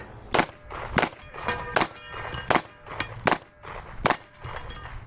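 Rapid pistol shots fired in a steady string, about one every three-quarters of a second, with steel targets clanging and ringing after some of the hits.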